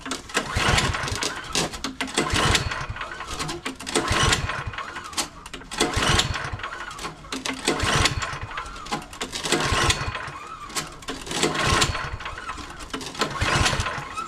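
MTD snowblower's 179cc four-stroke engine being cranked by its electric starter, surging about every two seconds as it turns over and sputters without catching, a no-start with fresh gas, choke and primer on.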